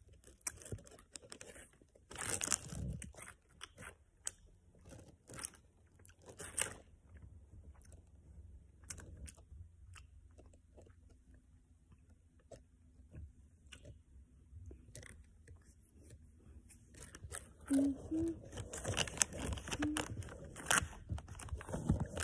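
A child chewing gummy candy close to the microphone: soft, irregular mouth clicks and crackles, busier near the end.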